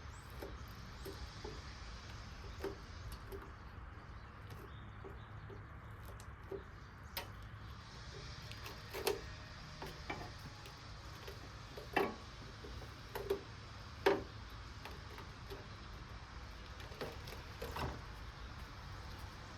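Scattered light knocks and clicks, the loudest about twelve and fourteen seconds in, over a low steady hum.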